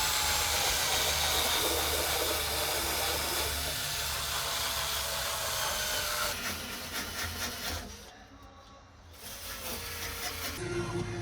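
A power tool sanding old paint off the steel of a VW Kombi cab, a steady abrasive hiss. The sound changes after about six seconds and drops away briefly around eight seconds before picking up again.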